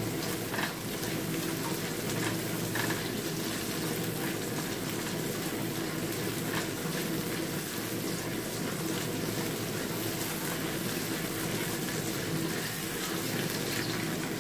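Garlic, ginger and spring onion stalks sizzling steadily in hot oil in a stainless steel wok, sautéed until fragrant, with a silicone spatula stirring and scraping lightly against the pan now and then.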